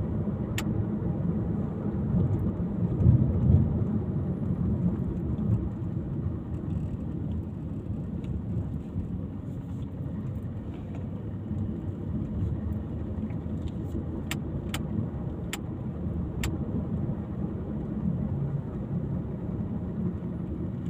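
Steady low rumble of a vehicle on the move, with a few faint clicks between about 14 and 16 seconds in.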